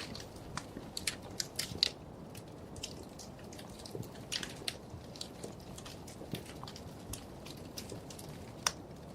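Wood fire crackling in a fireplace: irregular sharp pops and snaps over a low steady rumble of the flames, with a louder snap near the start and another near the end.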